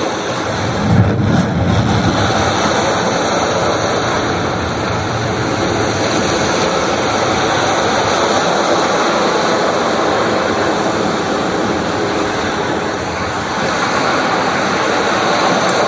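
Steady rushing noise, with a slight low swell about a second in.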